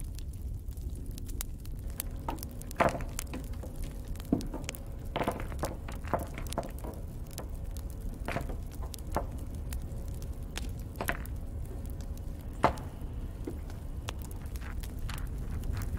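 Small hard painted clay miniatures being picked up and set down on a tabletop: scattered light clicks and knocks, the sharpest about three seconds in and again near the end, over a low steady hum.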